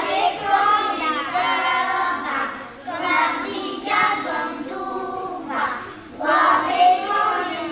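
Young children's choir singing the traditional Breton an dro song in Breton, in phrases with short breaks between them.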